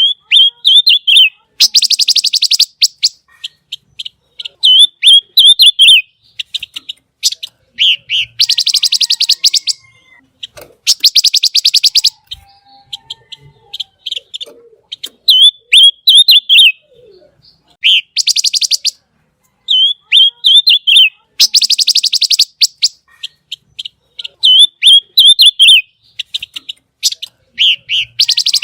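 Pancawarna songbird singing hard. Its song alternates very fast, buzzy, high trills of about a second with short, twisting whistled phrases, repeated over and over with brief pauses.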